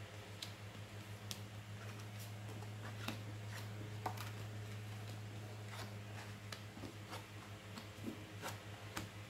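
Oracle cards being drawn from a spread-out deck and laid down on a cloth-covered table: faint, scattered light clicks and taps of card on card and table, over a steady low hum.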